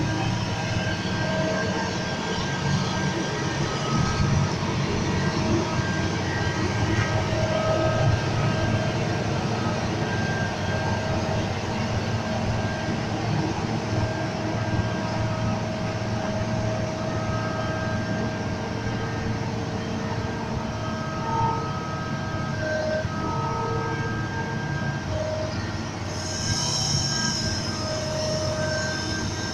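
Liebherr R 944 hydraulic crawler excavator's diesel engine running steadily under load, with whining tones that come and go as the boom and upper structure move. A brief high hiss near the end.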